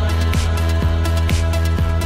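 Background music with a steady beat, about four beats a second, over a sustained low bass.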